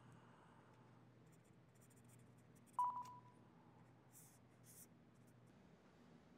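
Faint scratching of a pen sketching on a small handheld screen, with one short electronic beep about halfway through that fades quickly.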